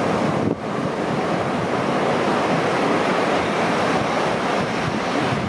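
Steady rushing of sea surf with wind noise on the microphone.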